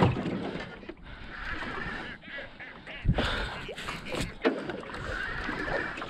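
Spinning reel working under load against a hooked fish, whirring in bursts of about a second, with a few sharp knocks about three to four seconds in.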